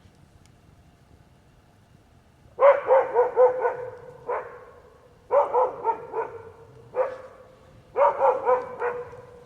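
An animal barking in quick runs of several sharp barks, starting about two and a half seconds in, with a few single barks between the runs.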